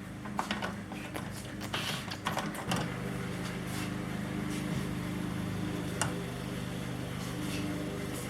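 A steady mechanical hum comes in about three seconds in and runs on, with a few light clicks and knocks scattered through.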